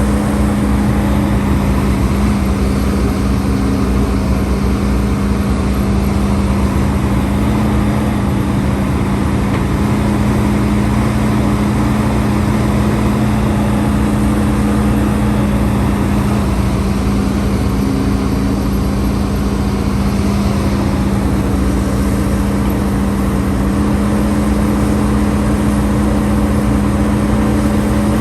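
Hidromek HMK230LC excavator's diesel engine running steadily, a constant deep hum with no change in pitch.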